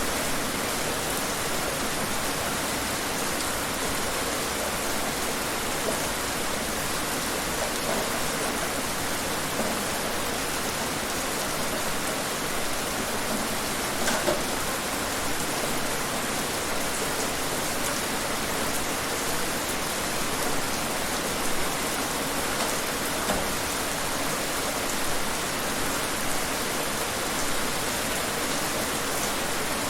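Steady rain falling and pattering on surfaces, an even hiss with scattered louder drops, the heaviest cluster about halfway through.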